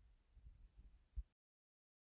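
Near silence with a few faint, low handling knocks, the last a short thump just over a second in. After that the sound goes completely dead.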